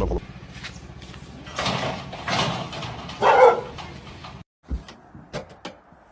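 A dog barking three times, the last bark the loudest, followed after a brief break by a few sharp clicks.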